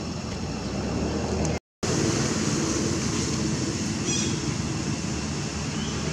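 Steady low mechanical rumble, like a running engine, that cuts out completely for a moment about a second and a half in, then carries on; a few faint high chirps about four seconds in.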